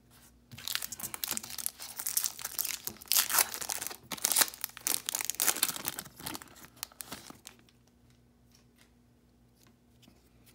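Foil wrapper of a Topps baseball card pack being torn open and crinkled by hand, a crackling rustle that lasts about seven seconds and then stops.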